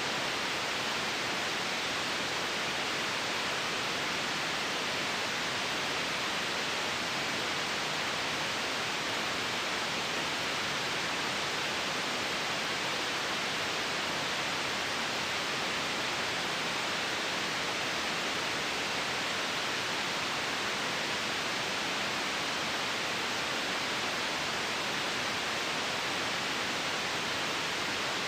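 Steady white noise: an even, unchanging hiss with no breaks or changes.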